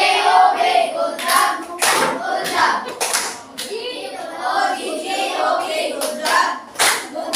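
Group of children singing together, with scattered sharp hand claps.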